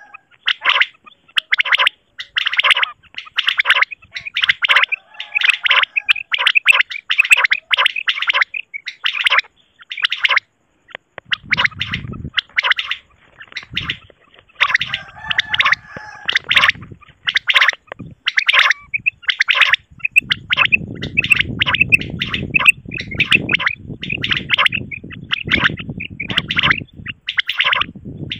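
Common quail (batair) calls from a recorded hunting lure track: short raspy calls repeated several times a second, with a brief pause about ten seconds in. A low rumbling noise runs under the calls in the last third.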